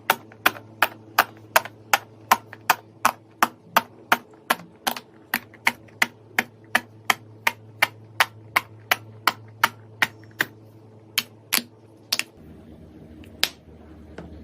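Bubbles of a silicone pop-it fidget toy being pressed one after another, each giving a sharp pop at about three a second. The pops thin out to a few scattered ones near the end.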